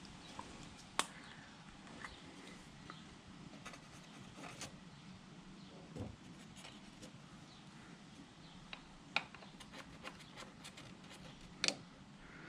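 Scattered light clicks and taps of tools and hardware being handled, a few sharper knocks standing out about a second in, about nine seconds in and near the end, over faint steady background noise.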